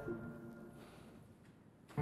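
Background music fading out into quiet, leaving only faint room tone.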